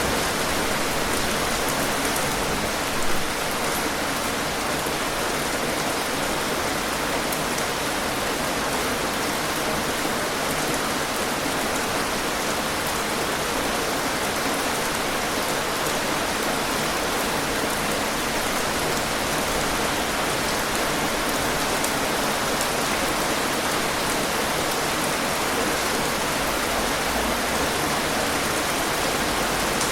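Heavy rain falling steadily, a dense even hiss of drops, with one brief louder hit about three seconds in.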